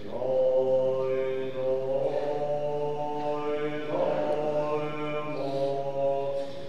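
Tibetan Buddhist monk chanting in long held notes, the pitch stepping to a new note every second or two, with a steady low tone underneath.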